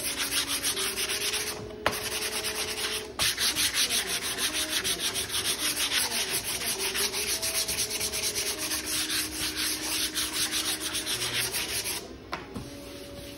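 Hand-sanding the wooden top of a cable spool: rapid back-and-forth rasping strokes of sandpaper on wood, with two brief pauses early on, stopping about twelve seconds in. The board is being smoothed before a stencil goes on, to help against paint bleeds.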